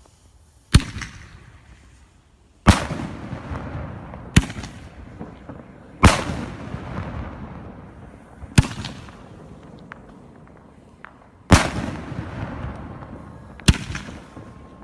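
Homemade firework shells fired one after another: seven loud, sharp bangs, several trailing a long echo that dies away over a second or two. The pattern fits the thump of each shell leaving its mortar tube followed a couple of seconds later by its burst in the air.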